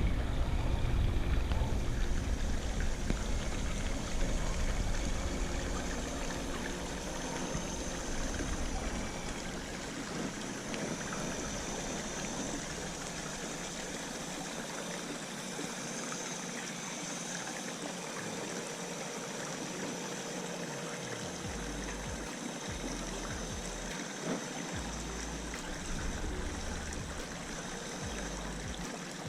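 Steady trickling, rushing water at a swimming pool, with a low rumble that is strong for roughly the first ten seconds and then comes and goes.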